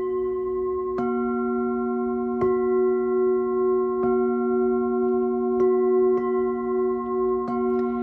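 Brass singing bowls ringing in a steady, sustained chord of tones, with a light mallet tap every second or two.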